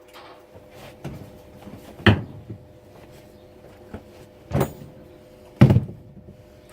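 MIG welder humming steadily, with three short loud noisy bursts about two seconds in, near four and a half seconds and near six seconds.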